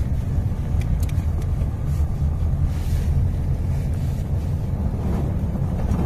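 A steady low rumble with no speech or music, and a couple of faint clicks about a second in.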